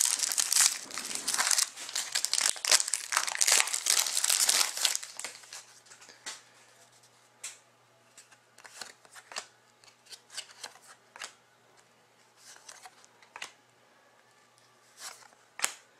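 A hockey card pack's foil wrapper being torn open and crinkled for about five seconds. Then quieter, with scattered short taps and rustles as the cards are handled.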